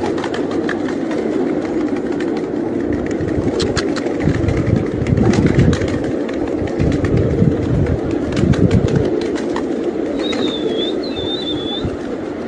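Pigeons cooing in a dense, pulsing run, with scattered sharp clicks. Two short high wavering whistle notes come near the end.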